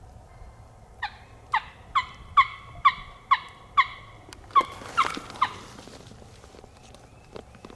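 A series of about ten turkey yelps, each a short call dropping in pitch, evenly spaced about half a second apart and lasting some four and a half seconds.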